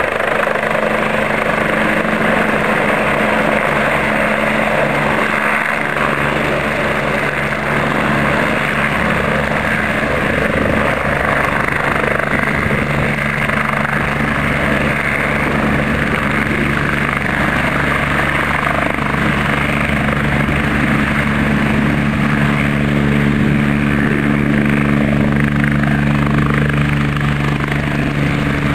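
BK 117 helicopter's twin turbine engines and main rotor running steadily as it hovers low and sets down on the pad, rotor still turning after touchdown. A low steady hum under the rotor noise grows stronger in the later part.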